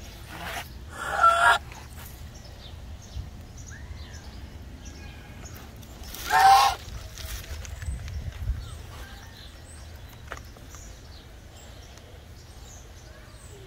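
A large bird calls loudly twice: a two-part call about a second in and a single call some five seconds later. Small birds chirp faintly throughout.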